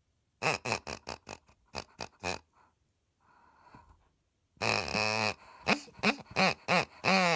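Pig-shaped squeaky dog toy squeezed over and over, its squeaker giving oinks: first a quick run of short grunts, then a longer oink about four and a half seconds in, a few short ones, and another long oink near the end.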